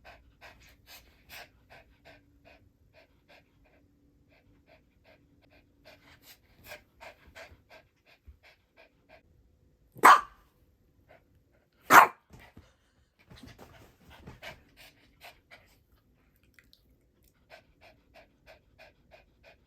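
Toy poodle panting in a quick, even rhythm, with two loud sharp sounds about two seconds apart near the middle.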